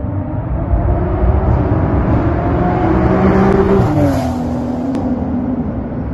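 A car at full throttle passing by on the street: its engine note climbs and grows louder, then drops in pitch as it goes past about four seconds in.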